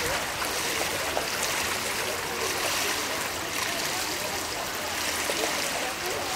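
Steady rushing and splashing of pool water, swelling slightly about once a second.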